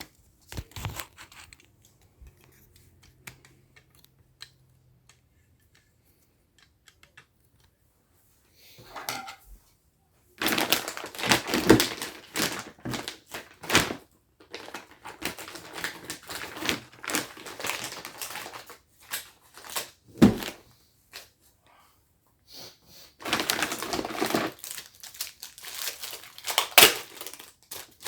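Packaging for a pack of cable organizers being opened by hand, crinkling and tearing. After about ten fairly quiet seconds with a few light clicks, the crinkling comes in three long bouts with short pauses between them.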